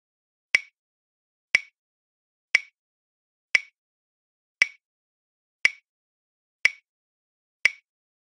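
Countdown timer sound effect: sharp clock ticks, one a second, eight in all, with silence between them.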